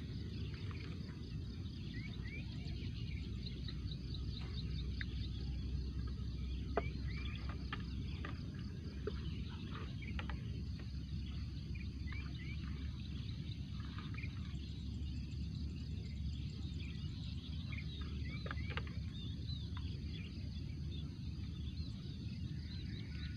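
Steady low outdoor rumble, with scattered short bird chirps throughout and one sharp click about seven seconds in.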